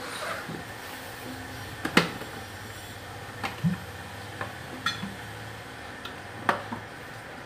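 Plastic airpot thermos and its lid clinking and knocking as it is handled and filled with hot water: a handful of sharp clinks, the loudest about two seconds in. A steady low hum runs underneath.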